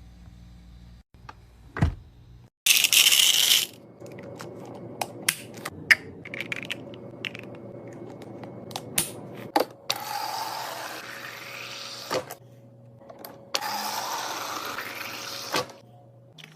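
Items being handled while a mini fridge is restocked: a run of sharp clicks and knocks, a loud rustling scrape about three seconds in, and two longer hissing stretches of about two seconds each in the second half.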